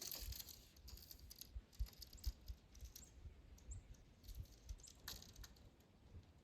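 Near silence of quiet countryside: faint scattered rustling and ticking, with a few short, high bird chirps in the second half.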